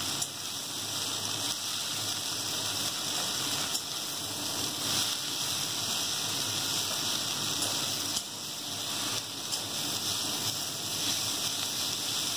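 Chopped water spinach sizzling in hot oil in a steel kadai, a steady hiss, while a metal spatula stirs it with a few light scrapes and knocks against the pan.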